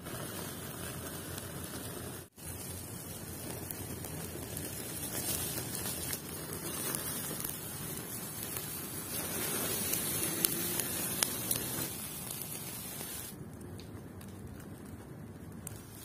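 Wood campfire burning under a burger patty on a wire grill: a steady hiss and sizzle with a few sharp crackling pops around the middle.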